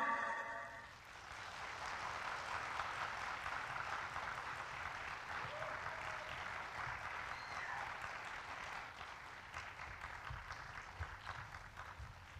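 Audience applauding after the music stops, starting about a second in and slowly dying away near the end.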